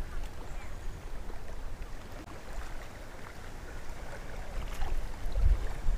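Wind buffeting the microphone, a low rumble that gusts louder near the end, over the faint wash of lake water.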